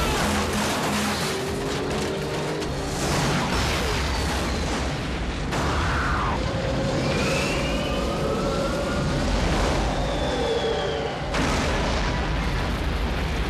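Movie soundtrack of explosions: a heavy, continuous blast-and-fire rumble with sudden jumps about five and a half and eleven seconds in, mixed with dramatic music.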